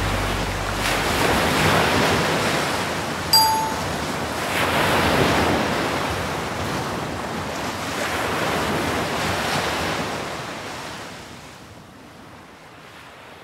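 Surf washing in, swelling and ebbing several times and fading out near the end, with a single short bright chime about three seconds in.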